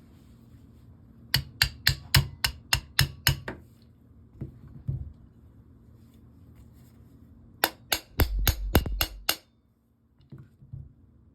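Small hammer tapping pins into an AR-15 lower receiver during trigger installation: a quick run of about nine sharp metallic taps, roughly four a second, then after a pause a second run of about six with a low rumble under them.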